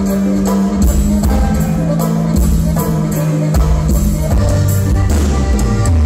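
A live Latin band playing: button accordion holding long notes over bass guitar, with congas, drum kit and acoustic guitar. The held notes change every second or so at a steady, loud level.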